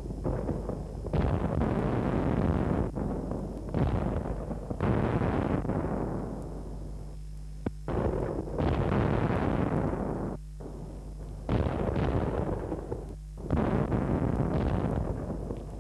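Soundtrack of explosions or artillery fire: heavy blasts, about eight in all, a new one every second or two, each dying away before the next, with brief lulls between.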